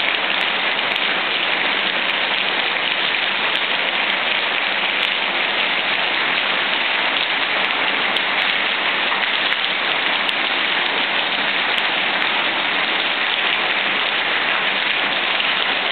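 Heavy rain mixed with hail pouring down steadily onto ground and garden plants during a thunderstorm, an even, unbroken hiss.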